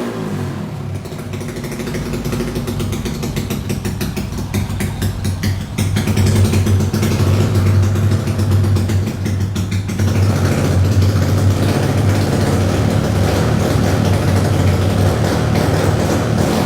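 Modified Honda Wave 125 motorcycle with a fully built MSX engine, running with regular firing pulses. It gets louder about six seconds in as it is revved.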